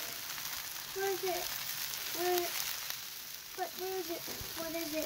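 Yakisoba noodles, meat and vegetables sizzling steadily on a hot BBQ griddle while a spatula stirs and lifts them.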